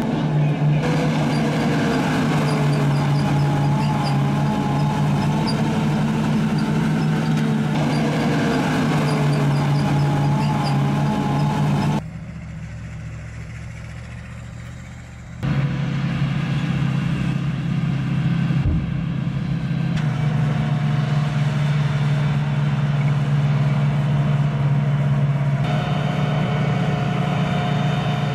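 Uragan rocket launcher's heavy truck engine running steadily, a low drone with no rocket launches heard. It drops to a much quieter background about twelve seconds in and comes back about three seconds later.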